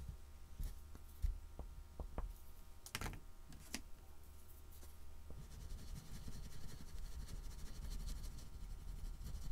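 A few light taps and clicks, then from about five seconds in the fast, scratchy rubbing of a soft oil pastel stick worked back and forth over a painted board.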